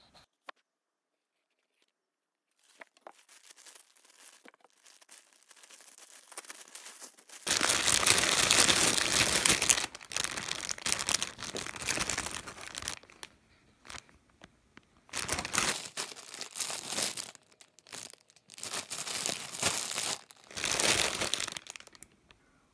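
Plastic packaging crinkling and rustling as clothing in plastic bags is unpacked from a parcel. Faint rustles begin about three seconds in, followed by a loud stretch of about two and a half seconds and several shorter bursts.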